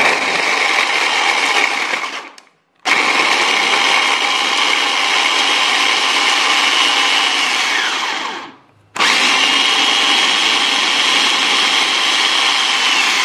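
Mitochiba CH100 electric food chopper running in three pulses, a short one and then two longer ones, mincing sausages and garlic into a paste. At the end of the second and third pulses the motor's whine slides down in pitch as the blade spins down.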